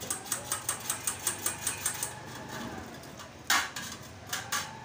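Small metal diesel fuel-injection pump parts clicking against each other and a steel dish as they are scrubbed by hand in washing liquid: a quick run of light clicks, about seven a second, for two seconds, then a sharper knock about three and a half seconds in and two more clicks near the end.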